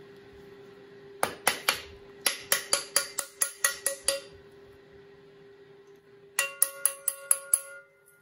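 Freshly cast brass casting knocked with steel pliers to shake off the casting sand: two runs of sharp metallic clinks, about four a second, the second run leaving a brief ringing.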